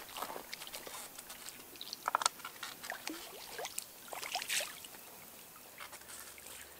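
Light, scattered water splashes and drips as a landing net is swished in the pond and lifted out, letting a small carp swim free. The splashes come in small clusters about two and four seconds in, then die down.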